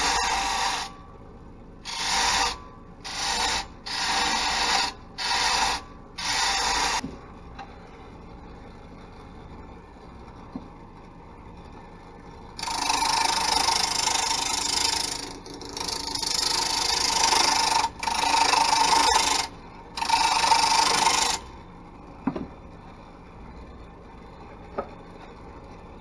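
Turning tool cutting into a spinning wooden blank on a wood lathe, a harsh scraping with each cut. The tool makes about six short cuts at first, then a few longer ones after a pause. Between cuts the lathe runs on with a quieter steady hum.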